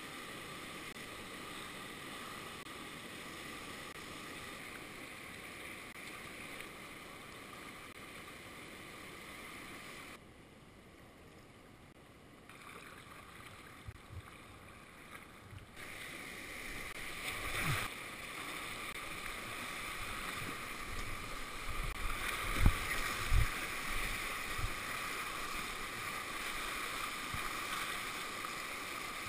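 Whitewater rapids rushing around a kayak. The water noise drops for a few seconds near the middle as the boat runs a calmer stretch, then rises again as the bow punches through breaking waves, with a sharp splash and several low thumps of water slapping the hull.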